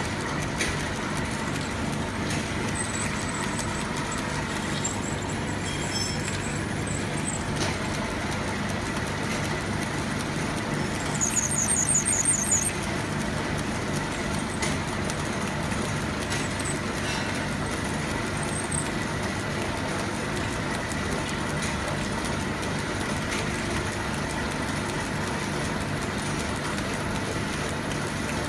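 A metalworking machine tool running steadily with a constant motor hum. About eleven seconds in it gives a brief high squeal lasting a second or so.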